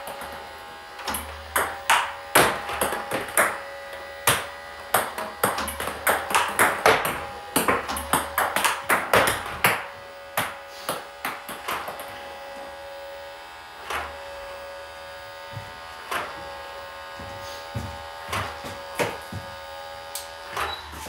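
Table tennis ball clicking sharply off the bat and table in quick succession as backhand loops are played against underspin balls, the hits thinning out over the second half. A steady electric hum runs underneath.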